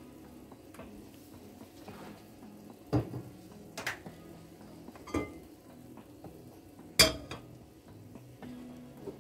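Kitchenware knocking and clinking: a cooking pot and oil bottle handled on a gas stove's grate. There are four separate sharp knocks, about three, four, five and seven seconds in, the last the loudest, over a faint steady hum.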